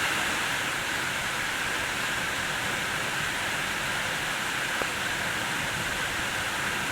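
Waterfall's falling water rushing steadily.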